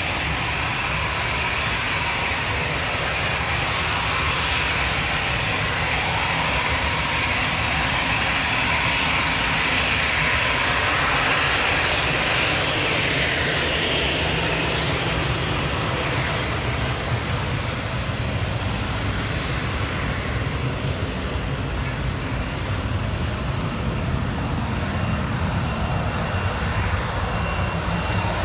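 Aircraft engines running steadily, a little louder around the middle.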